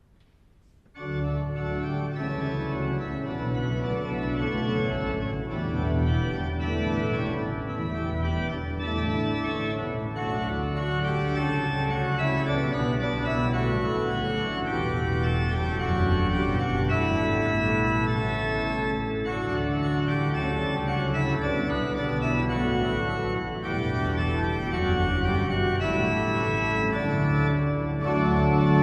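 Church pipe organ playing, coming in about a second in with full held chords over a moving bass line.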